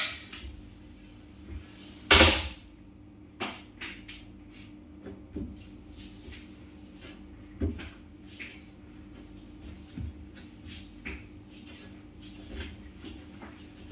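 Household cleaning sounds at a granite kitchen counter: a sharp knock about two seconds in, then scattered lighter knocks and clinks as items are handled and set down while the counter is wiped. A steady low hum runs underneath.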